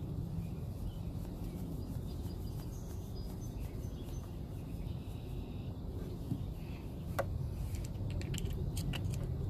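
Steady low outdoor background rumble with a few faint light clicks as a compression gauge's brass hose adapter is handled and threaded into a spark plug hole by hand.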